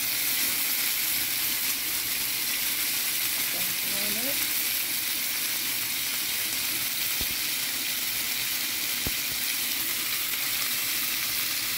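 Whole red potatoes, baby carrots and celery sizzling steadily in oil and seasoned drippings in a skillet, with two faint clicks from the pan later on.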